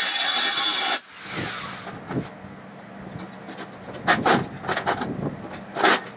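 A power tool running loudly on metal stops abruptly about a second in. A low steady hum and a few sharp knocks follow.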